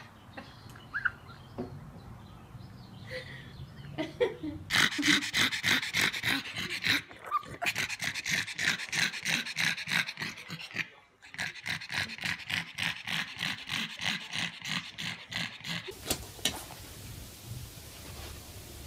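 A pug panting fast and hard, an even train of short huffing breaths, several a second, starting about five seconds in, pausing briefly, and stopping a few seconds before the end.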